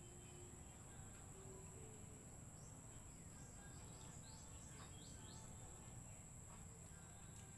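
Near silence, with a faint, steady, high-pitched insect drone and a few faint short chirps.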